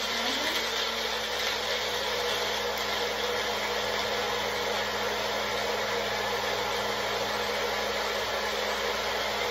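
Personal bullet-style blender running steadily, its motor crushing ice and blending fruit with water into a smoothie.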